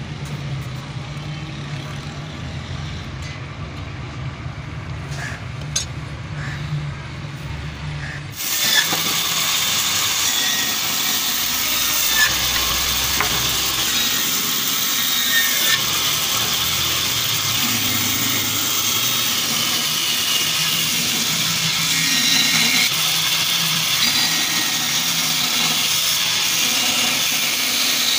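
A low steady hum with a few light clicks, then from about eight seconds in a band saw cutting through a wooden block, its blade making a steady loud hiss that swells a little as the wood is fed.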